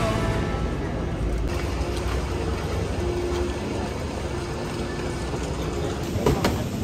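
Steady low rumble of a running vehicle, with a faint hum partway through.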